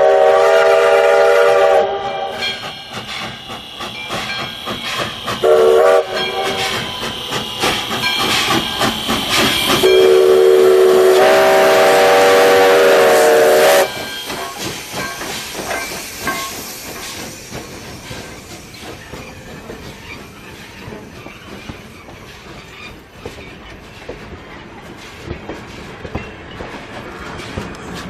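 Locomotive whistle sounding a chord of several notes: a long blast, a short one, then a long blast that steps up in pitch partway. A hiss follows, and the passing train's running noise then fades away.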